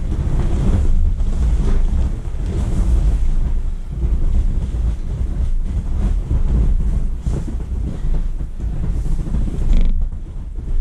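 Vinyl of an inflatable swim ring creaking as it is ridden and squeezed, over a heavy rumble of wind on the microphone.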